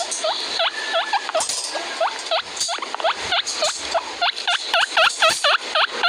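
Guinea pig wheeking, the cavy's excited attention-seeking call: a rapid run of short squeaky whistles, each dipping and hooking back up in pitch, about five a second. The calls thin out briefly around two seconds in.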